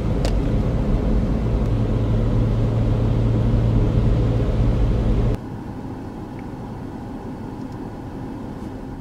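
Car driving on a wet road, heard from inside the cabin: steady engine and tyre noise with a low hum. About five seconds in it cuts off suddenly to a much quieter steady background.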